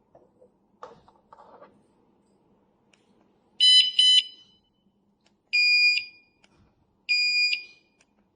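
Bicycle tail light's built-in alarm beeping: a few faint clicks, then two quick beeps about three and a half seconds in, followed by longer beeps in a different tone about every second and a half.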